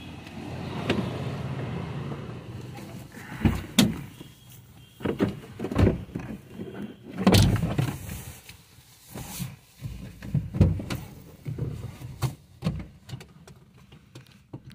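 Irregular knocks, thumps and rustling as a person climbs into a car and settles into the seat.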